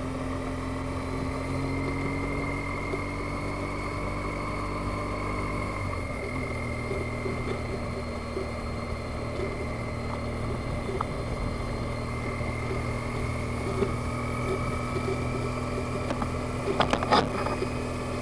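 Motorcycle engine running under way, with a steady drone and wind rush heard from a helmet-mounted camera. The engine note rises slowly and then drops about six seconds in, as at a gear change.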